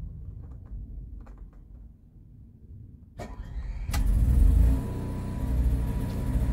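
RV propane generator starting up: a click about three seconds in, then the engine comes on suddenly about a second later and keeps going with a low, pulsing drone.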